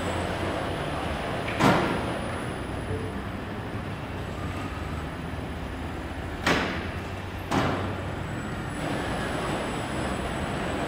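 Robotic crate-palletising cell running: a steady hum of the roller conveyors and robot arm, with three sudden sharp clacks as plastic crates are handled, one about two seconds in and two a second apart near the middle.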